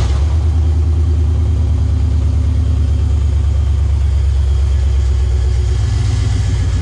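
1995 Camaro Z28's LT1 V8 running steadily, loud and low, just after its first start on newly installed long-tube headers.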